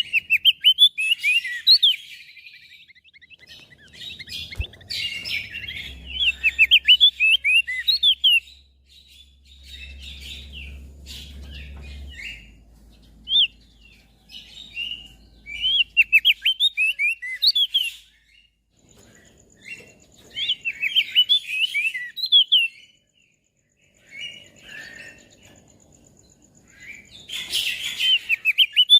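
Crested white-eye (opior jambul) singing: bouts of quick, high twittering notes, each a few seconds long, broken by short pauses.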